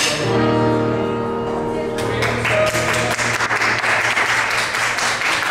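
A piece of music ends on a held chord, and about two seconds in applause breaks out from a room of people and carries on.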